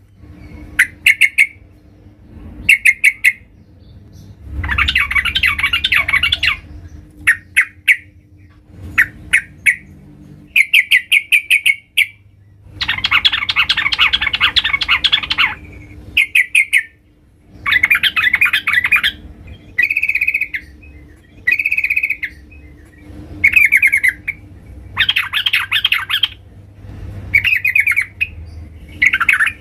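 Female sooty-headed bulbul (trucukan) calling: short bursts of quick chattering notes every second or two, broken by longer runs of chatter lasting two to three seconds. These are the female's calls, used as a lure to draw in males.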